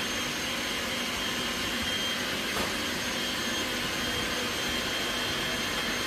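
Steady whirring machine noise with a faint even hum, like an appliance motor moving air, and a single faint click about two and a half seconds in.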